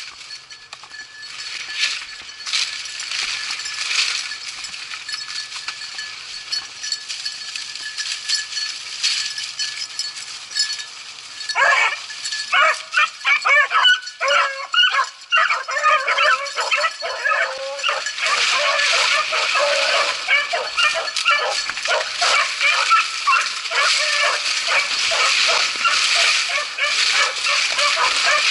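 Beagles baying on a rabbit's trail. The calls break out about twelve seconds in as scattered yelps, then build into a continuous chorus of overlapping voices.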